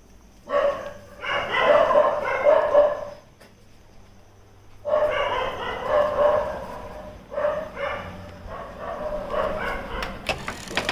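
Dog barking and whining in repeated bursts, with a pause of nearly two seconds in the middle.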